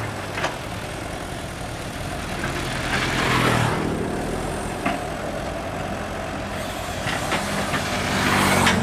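Sumitomo 265 tracked excavator's diesel engine running hard as the machine crawls through deep, sticky mud, getting louder for a moment about three seconds in.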